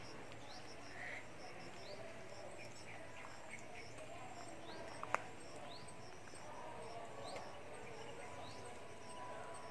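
Quiet garden ambience with small birds chirping: scattered short, high, rising chirps, and one sharp click about five seconds in.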